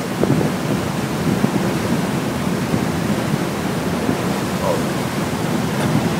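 Steady rushing noise of water churned up in a passenger ferry's wake, with wind on the microphone.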